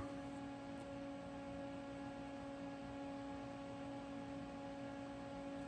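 A steady hum with one constant tone and fainter higher tones above it, and no other sound.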